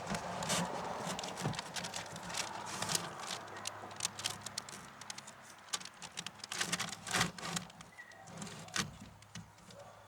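Irregular clicks and crackling handling noise from hands pressing and working strips of butyl tape sealant, over a faint steady low hum.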